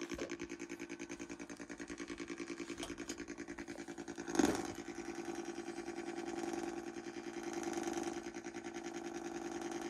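Buzzing electronic tone from a homemade transistor circuit's audio output, picked up by a copper spiral coil antenna, pulsing about six times a second, a phasing that the builder thinks comes from powering the circuit off the frequency generator. The tone swells and shifts as a hand moves over the coil, with a brief louder crackle about four and a half seconds in.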